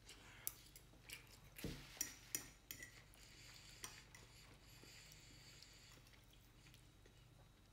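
A metal fork clinking and scraping against a dinner plate: several light, sharp clicks over the first four seconds.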